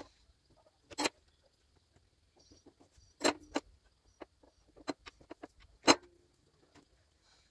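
Scattered light clicks and taps from a small circuit board, wires, a soldering iron and a solder reel being handled during soldering, with sharper clicks about a second in, around three and a half seconds in and near six seconds.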